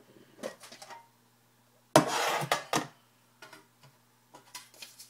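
Paper name slips being tossed into a metal tin: light clicks, then a short loud rattle about two seconds in, followed by a few faint taps.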